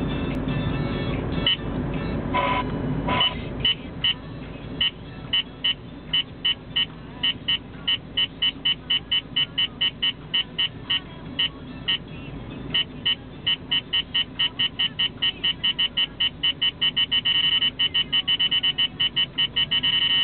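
Dashboard radar detector sounding an alert over car cabin and road noise: short, high beeps that start about two a second and speed up to several a second, merging into an almost continuous tone near the end. The quickening beeps mean the detected radar signal is getting stronger as the car closes in on the radar source.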